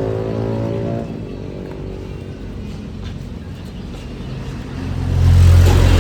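A motor vehicle's engine running, a low steady hum that grows much louder about five seconds in.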